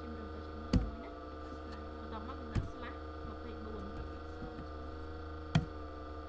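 Steady electrical hum with three sharp computer keyboard keystrokes, spaced a couple of seconds apart, as an IP address is typed.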